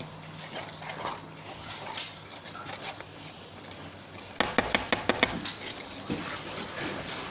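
Kitchenware clattering. After a quiet stretch, from about four seconds in, a quick run of sharp clinks and knocks of utensils against a bowl or dish.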